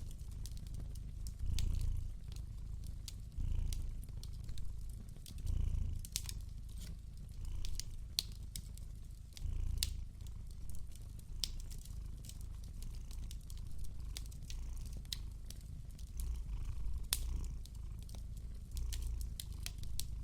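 A cat purring steadily in a low rumble that swells every second or two, over a wood fire crackling with sharp pops and snaps.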